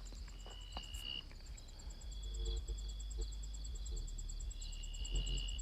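Crickets chirping in a fast, even pulse, over a faint low bass thumping from a distant car stereo.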